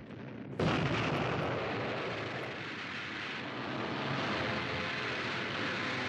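A loud, steady heavy rumble of vehicle engines that starts suddenly about half a second in and holds on.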